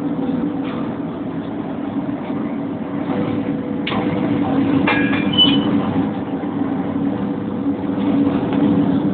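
Steady low machinery drone with a constant hum inside a compressed-air chamber, with two short knocks about four and five seconds in.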